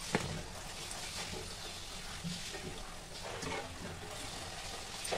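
A puri deep-frying in hot oil in a kadhai: steady sizzling and bubbling as the puri goes into the oil, with a sharp knock just after the start and a few light knocks.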